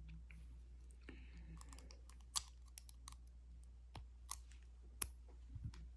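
Scattered small clicks and taps of a padlock and its metal parts being handled during disassembly, with two sharper clicks, about two and a half and five seconds in.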